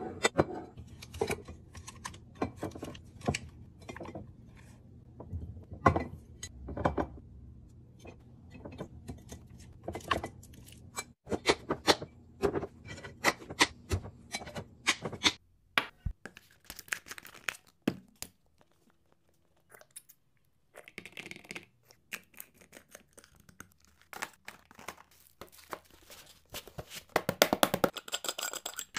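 Glass food-storage containers and their lids being handled, set down and stacked, making many sharp clicks and knocks. There is a short quiet gap past the middle. Near the end comes a rapid scraping as a metal screw lid is twisted onto a small glass jar.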